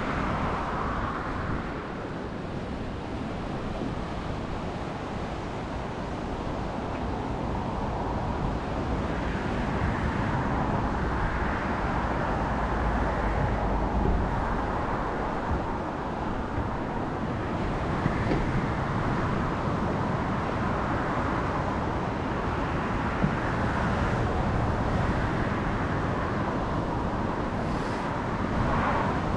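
Seaside ambience: surf washing in slow swells, with wind rumbling on the microphone and traffic on the coastal road mixed in.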